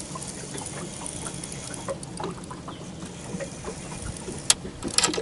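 Fishing reel being cranked to bring in a hooked catfish: light scattered ticks and clicks from the reel and tackle, with one sharp click about four and a half seconds in and a few more clicks near the end.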